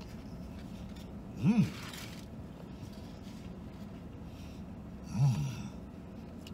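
A man making two short closed-mouth hums of enjoyment, "mmm", while chewing a mouthful of spicy chicken sandwich: one about a second and a half in, another near the end, each rising then falling in pitch.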